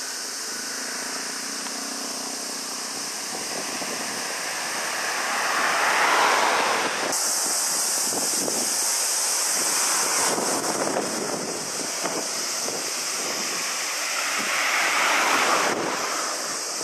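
Wind rushing over the microphone, a steady noisy rush that swells twice.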